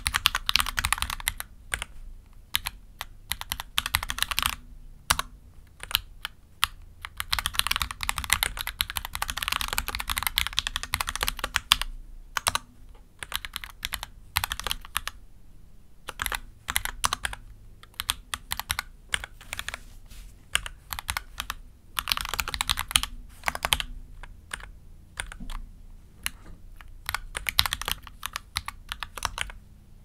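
Mechanical keyboard with Gateron Oil King v2 linear switches being typed on, keystrokes coming in quick runs of clacks separated by short pauses.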